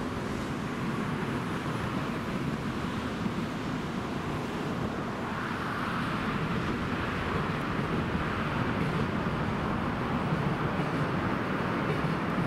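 Steady outdoor roadway noise of passing traffic, with wind on the microphone; it swells slightly about halfway through.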